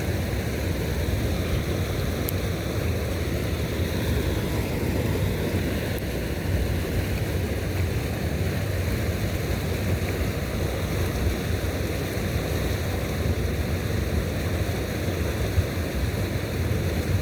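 Steady rushing noise, even in level throughout, strongest in the low range, with no clear events in it.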